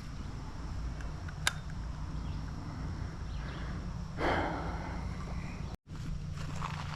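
A person moving along a grassy creek bank: a steady low rumble of handling and movement on the microphone, a sharp click about a second and a half in, and a brushing rustle about four seconds in. The sound cuts out for a split second near the end.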